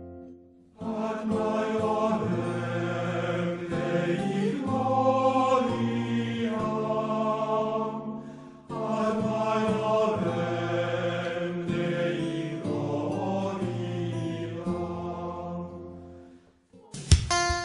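Background music of slow chant-like singing, two long phrases of held notes with a short break about eight and a half seconds in. A louder piece of music cuts in at the very end.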